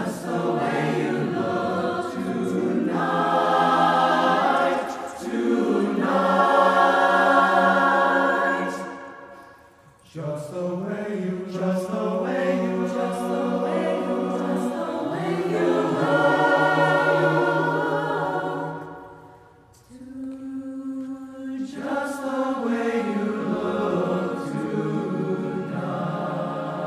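Mixed choir singing in harmony, long held chords in phrases that swell and then fade almost away about ten seconds in and again near twenty seconds, each time before the next phrase enters.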